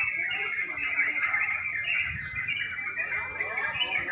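A chorus of many caged crucuk birds (yellow-vented bulbuls) singing at once, with dense overlapping chirps and quick falling whistles repeated over and over.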